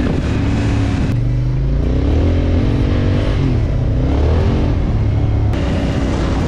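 Honda Africa Twin motorcycle engine running on a dirt road, with wind rushing over the microphone. About a second in the wind drops away and the engine note rises and falls for a few seconds with the throttle, then the wind noise returns.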